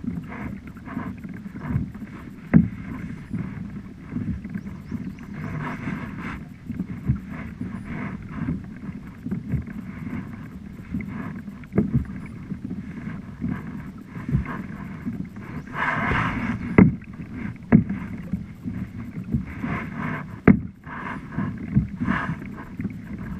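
Kayak being paddled on calm water: paddle blades dipping and splashing every couple of seconds, with a few sharp knocks.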